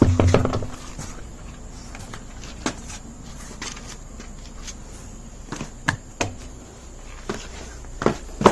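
A car wheel and tools being handled: one dull thump right at the start, then scattered light knocks and clicks.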